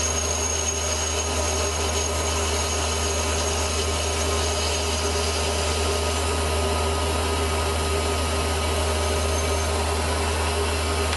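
Small metal-turning lathe running steadily while its tool takes a turning cut along a small metal shaft. A faint high whine drops out near the end.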